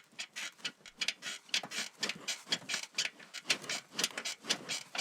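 Bed frame and headboard creaking and squeaking in a quick rhythm, several short creaks a second, as from rocking on a bed.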